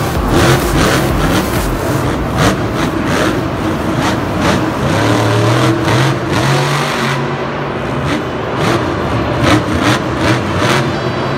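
Grave Digger monster truck's supercharged V8 engine running and revving as the truck drives over dirt and ramps, its pitch rising about five seconds in.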